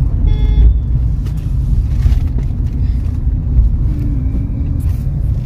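Low, steady road and engine rumble inside a moving car's cabin, with a short high-pitched whine about half a second in.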